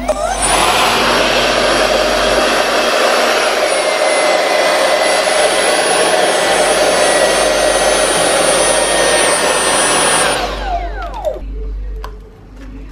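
60 mm electric ducted fan with a brushless motor in a 3D-printed vacuum cleaner, spinning up quickly, then running with a loud rush of air and a steady high whine for about ten seconds before spinning down.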